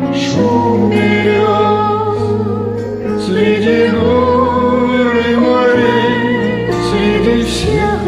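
Music: a slow song, with a voice holding long, wavering notes without words over the backing.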